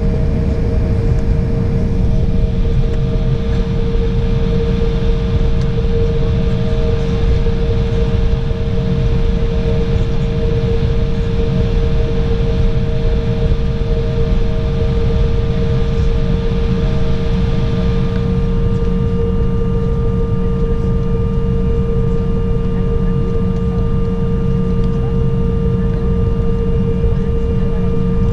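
Inside the cabin of an Embraer 195 moving slowly on the ground: the steady hum and whine of its GE CF34 turbofan engines at low power. About two-thirds of the way through, the whine changes as a higher, thinner tone comes in.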